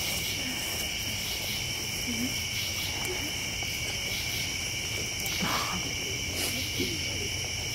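Night-time chorus of crickets and other insects: a steady, high-pitched drone in several overlapping pitches.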